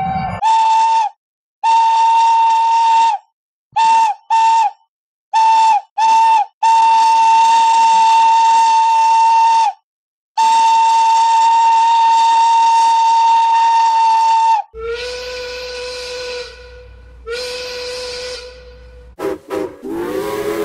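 Cartoon steam-engine whistle sound effects, Henry's and James' whistles: a high whistle on one steady pitch blown in toots of different lengths, a long blast, two pairs of quick double toots, then two long blasts. About three quarters of the way through, a lower whistle sounds twice, ending in a short wavering burst.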